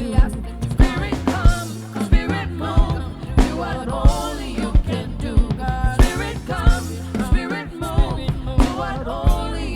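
Live gospel worship music: a drum kit playing a steady beat with kick drum, over bass and sustained chords, with singing voices.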